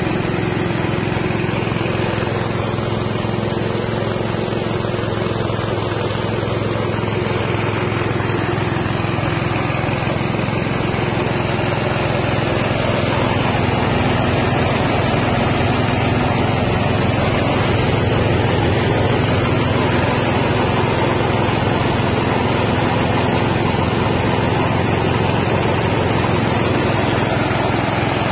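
Small 6.5 hp engine-driven rice milling machine running steadily under load, hulling and polishing paddy into rice and bran. A little louder from about halfway.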